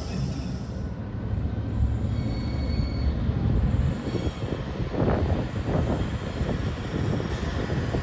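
A train running on the line with a steady low rumble of wheels on track, and a faint high wheel squeal about three seconds in.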